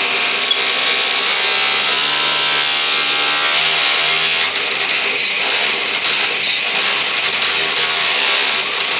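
Arrma Limitless RC speed-run car's brushless motor and drivetrain whining under full throttle. The high whine climbs and holds, then dips and rises again three times in the second half as the throttle is eased and reapplied.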